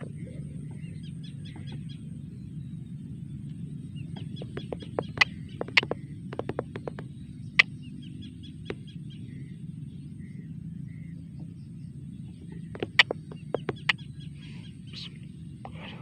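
Rice-field ambience: faint short chirps of small birds over a steady low rumble, broken by a few clusters of sharp clicks about five seconds and thirteen seconds in.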